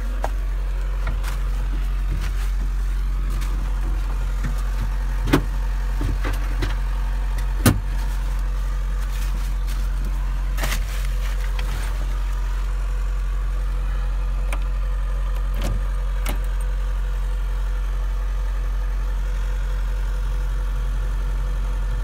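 A diesel engine idling steadily, a low, even drone, from the Bobcat S590 skid steer that is already running while the excavator waits to be cold-started. A few sharp clicks and knocks from inside the cab cut across it, the loudest about five and eight seconds in.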